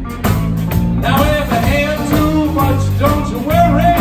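A live electric blues band playing, with electric guitar, bass and drums. From about a second in, a lead melody bends up and down over them.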